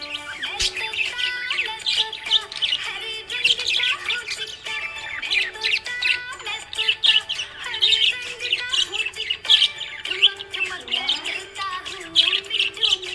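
Budgerigars chirping and warbling in a rapid, continuous stream of short high chirps, with a slower melody playing underneath.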